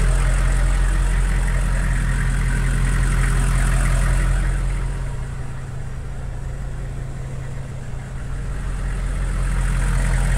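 Hummer H1's engine idling steadily, heard through the open doors. It is a little quieter for a few seconds midway, then comes back up.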